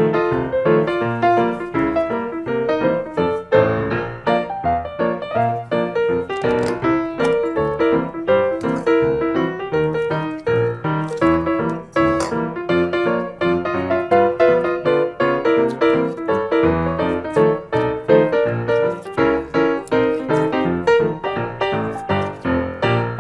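Background music: a keyboard tune with a steady beat.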